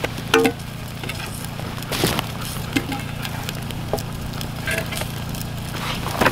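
Campfire crackling with scattered pops and snaps. About half a second in comes a sharp metallic clink with a short ring as a small frying pan is handled on the fire.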